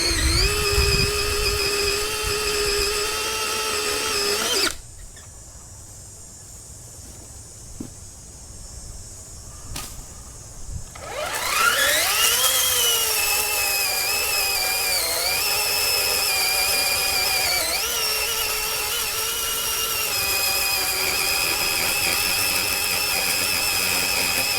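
Greenworks 40V brushless cordless chainsaw running at speed with a steady high electric whine. It cuts off about five seconds in, and after a quieter gap with a few knocks it spins back up with a rising whine. It then runs on steadily, dipping briefly in pitch a couple of times.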